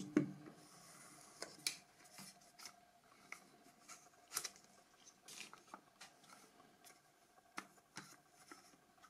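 Faint handling of a product box and its insert: scattered light clicks and taps with a soft rustle near the start, the loudest tap about four seconds in.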